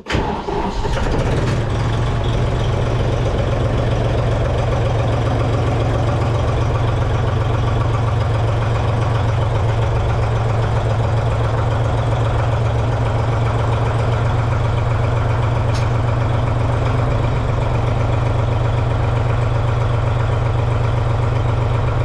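Tractor engine starting, then running steadily at idle with a strong low hum.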